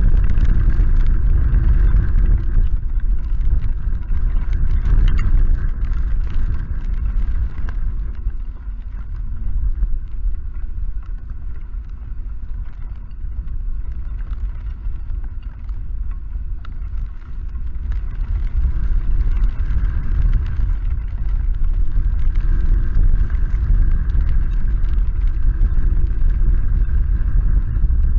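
Storm wind blowing across the nest camera's microphone with rain pattering, easing somewhat in the middle and building again near the end.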